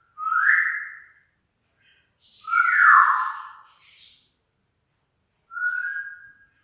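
A falcon giving three drawn-out, breathy whistling wails, each about a second long, the middle one the loudest.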